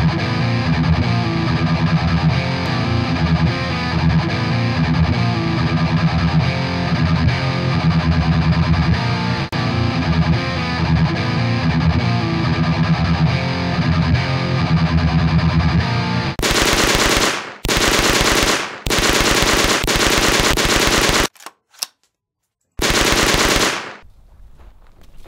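Distorted electric guitar music, then several bursts of rapid machine-gun fire, about a second or two each, with short gaps and one brief silence between them.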